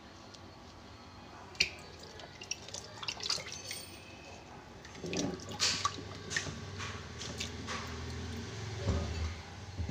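Hands washing shallots and spice roots in a plastic basin of water in a steel sink: irregular splashes, drips and small knocks, getting busier about halfway through.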